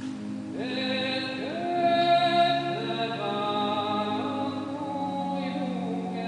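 Background music: slow, long held notes that slide up into pitch, over a steady low drone.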